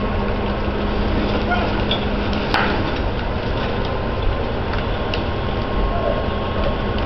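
Fire engines running in a steady rumble at a working fire, with distant voices and a single sharp knock about two and a half seconds in.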